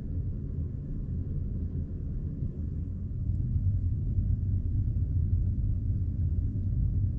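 Steady low rumble of a large ferry's machinery heard inside a passenger cabin, growing a little louder about three seconds in.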